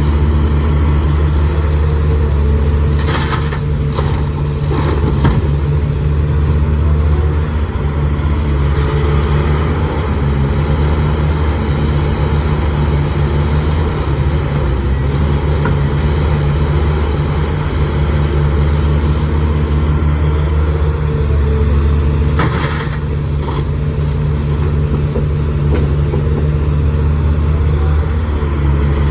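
Heavy diesel engine of an excavator running steadily with a deep hum, with a few brief metallic knocks about three to five seconds in and again a little past twenty seconds.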